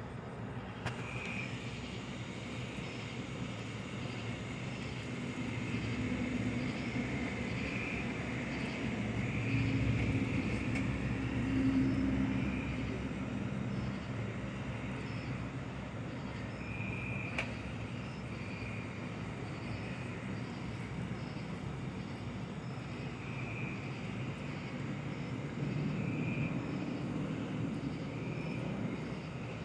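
Outdoor background with a low rumble that swells about ten seconds in and again near the end, and a faint high chirp repeating every second or two.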